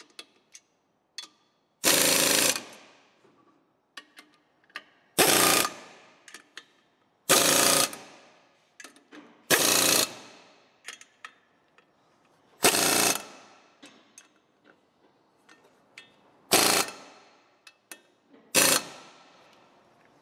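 A power wrench runs in the bolts of a clutch pressure plate, seven short bursts of about a second each, two to three seconds apart. Small clicks of the socket and tools fall between the bursts.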